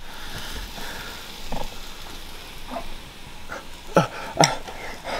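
Metal fork scraping and prodding at a slab of ham in a ceramic bowl over a steady hiss, then a couple of sharp, short eating sounds about four seconds in as the ham is bitten into.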